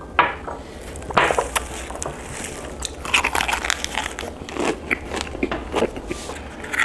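Close-up eating sounds: biting and chewing food, with short crunchy, crackly clicks scattered through.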